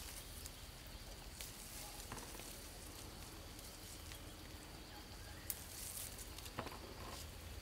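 Faint rustling of leaves and branches with a few light snaps and clicks as small fruit is picked by hand from a tree and dropped into a plastic basket; the sharpest clicks come about five and a half and six and a half seconds in.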